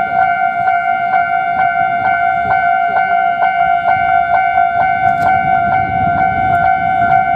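Japanese railway level-crossing warning bell ringing its steady, repeated "kan-kan" at about two and a half strikes a second. A low rumble builds under it near the end.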